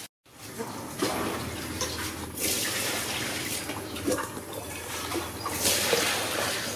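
Grass and leaves rustling as a small animal moves through them, swelling twice, with a few light clicks.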